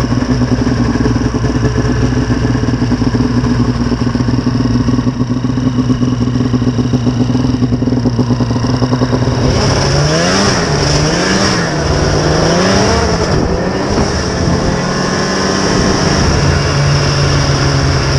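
Old Arctic Cat snowmobile's two-stroke engine idling at a steady pitch. About ten seconds in it is revved up and down three or four times as the sled pulls away, then runs at a steadier, higher note.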